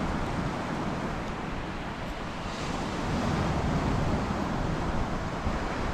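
Wind blowing over the microphone with surf washing on the beach, a steady rushing noise.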